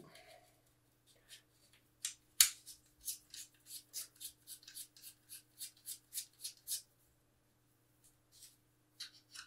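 Mounted filters being screwed by hand into a filter-wheel carousel, making small metal clicks and ticks. There is one sharper click a couple of seconds in, then a run of light ticks at about three a second, and a few scattered ticks near the end.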